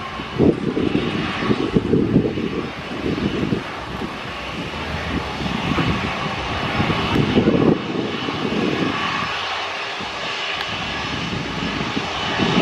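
Airliner engines running at an airfield, a steady rushing engine noise, with irregular gusts of strong wind buffeting the microphone.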